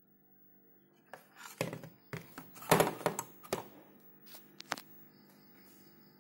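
PowerColor HD7970 graphics card being turned over and handled on a desk: a run of knocks and clatters, loudest about three seconds in, over a faint steady hum.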